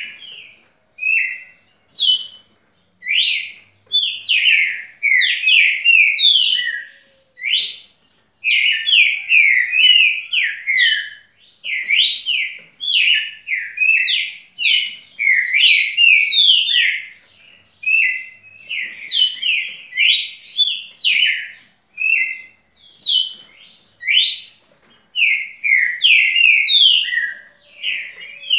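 A caged songbird singing in quick bouts of short, sliding whistled notes, each bout lasting a second or more with brief pauses between them.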